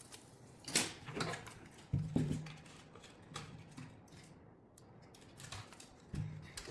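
Scattered clicks and light knocks of small wooden kit parts being handled and fitted together, with a brief low hum about two seconds in.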